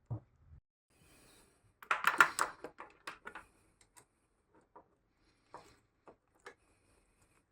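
Clatter of hand tools and small metal parts being worked, a burst of clicks and knocks about two seconds in, then a few separate ticks while freeing the exhaust servo bracket on a motorcycle.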